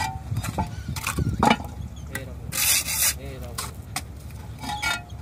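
Block laying: a steel trowel and concrete blocks scraping and knocking on wet mortar. There is a sharp knock about a second and a half in and a longer gritty scrape a little past the middle.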